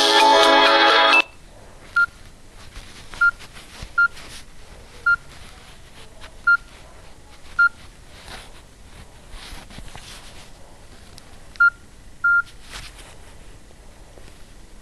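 A Nokia 6124 classic's ringtone melody plays, then stops suddenly about a second in. After that come eight short, single-pitched keypad beeps at irregular intervals, the last one a little longer, among faint clicks.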